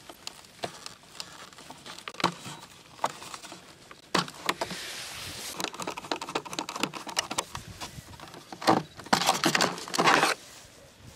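Close-up clicks, taps and scraping from hands working on an RC model plane's fuselage: wiring connectors being handled and a small screwdriver turning a screw into the hatch plate. There are two longer scraping stretches, about four seconds in and about nine seconds in.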